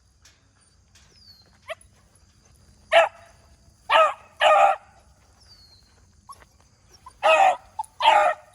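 A young beagle bays on a rabbit's track, giving mouth on the scent. There is one short yelp, then five loud bays in two groups: three about a second apart, and two near the end.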